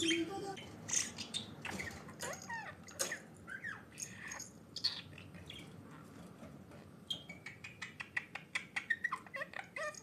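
Pet budgerigar chattering: a string of squeaky chirps and warbled, speech-like glides, turning into a fast run of clicking chirps near the end.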